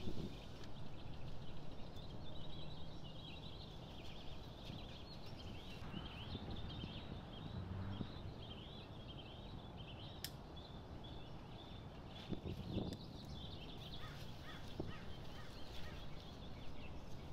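Outdoor garden ambience: birds chirping continuously over a steady low background rumble, with a single sharp click about ten seconds in.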